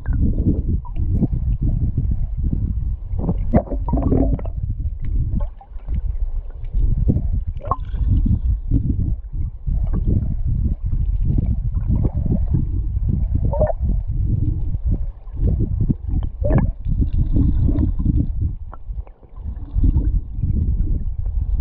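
Muffled underwater rumble and gurgle of a flowing river, heard with the microphone submerged, with scattered small knocks and clicks.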